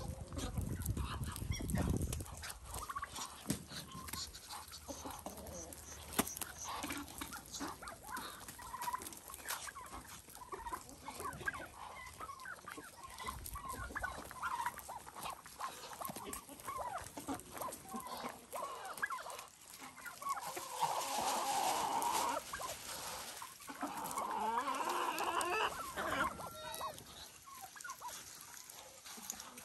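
Farmyard flock of chickens clucking and calling in many short, overlapping calls, with two louder flurries of calls about two-thirds of the way in and again a few seconds later.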